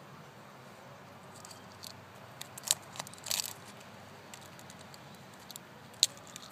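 Chicken eggshell cracking and crinkling as fingers pick pieces off an unhatched egg: a few separate sharp cracks, the loudest about two and a half seconds in and again about six seconds in, with a short run of small crackles between.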